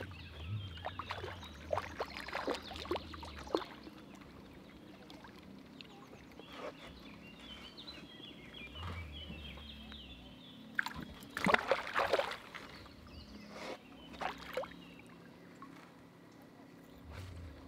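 Water splashing and sloshing at a small boat on a river, in short bursts: one cluster of splashes in the first few seconds and a louder one around the middle. Faint birdsong carries between them.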